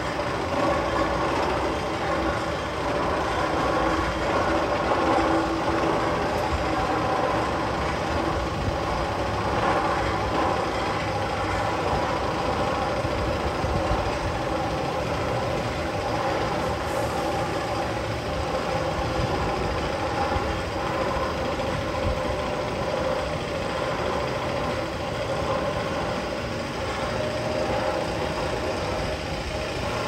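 Steel roller coaster's chain lift running steadily as a loaded train is hauled up the tall lift hill, a continuous mechanical rumble and clatter with a faint steady whine in it.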